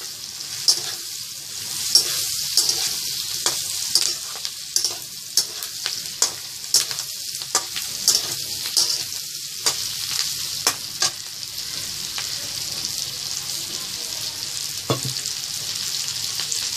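Prawns, onions and chillies sizzling in a hot metal wok while a metal spatula stirs them, scraping and clacking against the pan. The clacks come about twice a second for the first ten seconds or so, then only now and then.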